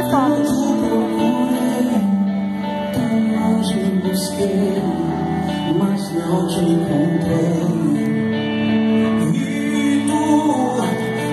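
Live gospel worship music: a singer with a band, guitar among the instruments, playing at a steady level.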